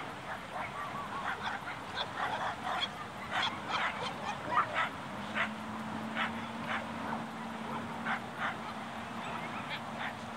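Dogs barking and yipping in quick, irregular bursts, busiest in the first half. A steady low hum starts about halfway through.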